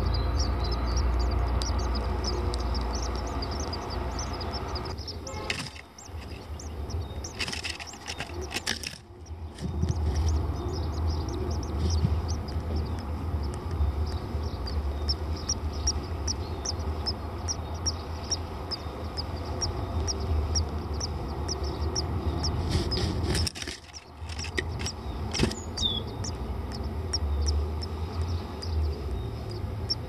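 Great tit nestlings begging with short high-pitched chirps, several a second, over a low rumble. The sound breaks off briefly three times.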